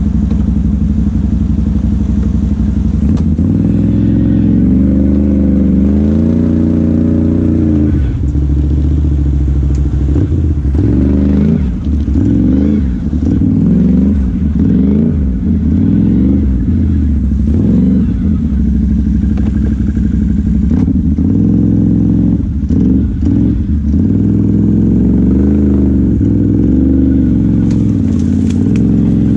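Off-road vehicle engine running under changing throttle, its revs climbing and dropping again and again as it is ridden, with a few knocks about three quarters of the way through.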